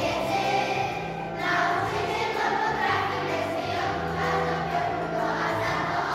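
Children's choir singing a song together, with low held notes underneath from an accompaniment.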